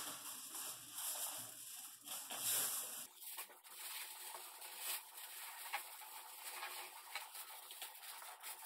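Sheets of aluminum foil crinkling and rustling as they are handled and slid down inside a cardboard box, with scattered light taps.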